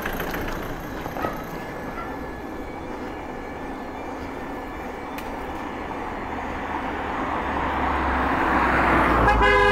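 Steady wind and road noise from riding a bicycle on the open road. It grows louder over the last few seconds as a low rumble builds.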